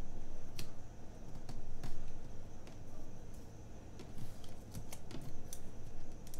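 Irregular light clicks and taps of long fingernails and fingertips on paper as a strip of washi tape is pressed and smoothed onto a planner page.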